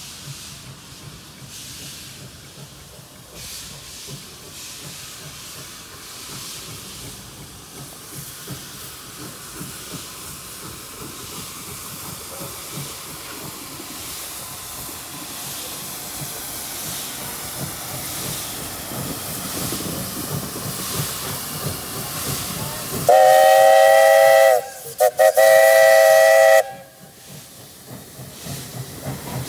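Steam locomotive pulling a passenger train away from a station, its exhaust and hiss growing louder as it approaches. About 23 seconds in, its steam whistle blows two loud blasts of about a second and a half each, sounding a chord of several notes.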